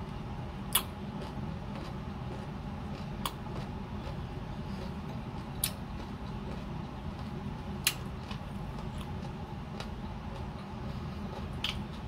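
Close-up mouth sounds of someone chewing mango: a few sharp wet clicks and crunches about two to three seconds apart, over a steady low room hum.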